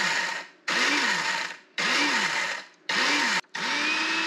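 Small electric blade grinder pulsed in about five short bursts, chopping dried Kashmiri chilies. The motor rises in pitch and drops off with each burst, and the last burst is held longer.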